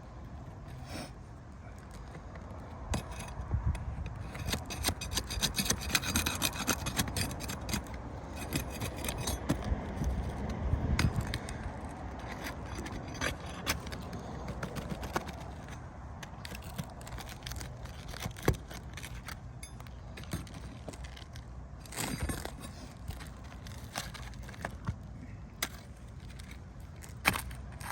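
Asphalt ridge cap shingles being pried and scraped loose from a roof, where they are stuck to the tar line. Irregular scraping and rubbing, busiest in the first half, with scattered sharp clicks of tool on shingle.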